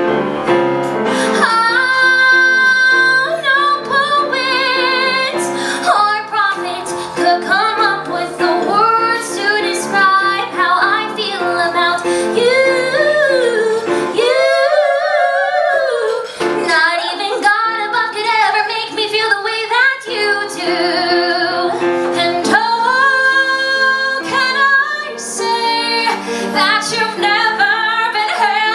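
Two women singing a musical-theatre duet live with piano accompaniment. Around the middle the piano drops out for a couple of seconds while one voice holds a long note with vibrato.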